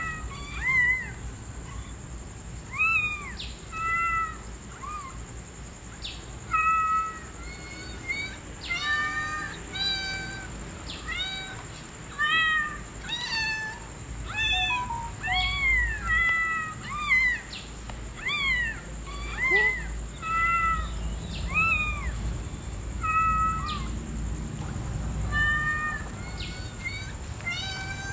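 A kitten meowing over and over: short, high-pitched calls that rise and fall, a few every couple of seconds.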